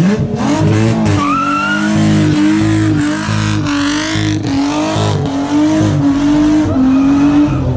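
Car engine held at high revs during a burnout, its pitch dipping and recovering about twice a second, with the spinning tyres squealing against the tarmac.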